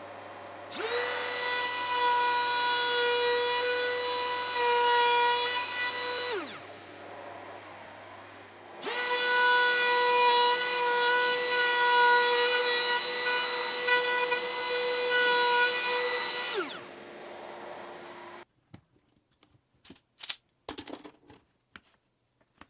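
Compact trim router spinning up to a steady high whine, running for several seconds, then winding down; this happens twice. A fainter steady hum runs underneath, and a few light clicks and knocks come near the end.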